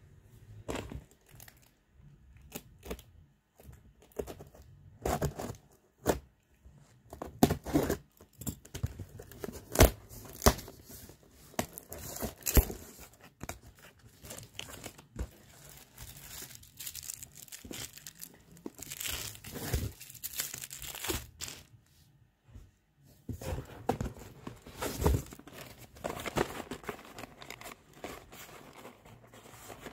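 Corrugated cardboard shipping box being torn open by hand: tape and cardboard ripping, flaps pulled back, plastic wrap crinkling and boxes knocking as the contents are lifted out. An irregular run of rips, rustles and knocks, with the loudest rips about ten and twelve seconds in.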